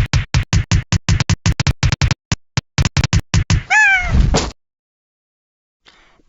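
Fast electronic beat of short, even hits, about six a second, that thins out and stops about three and a half seconds in. Then one short meow bending down in pitch, followed by silence.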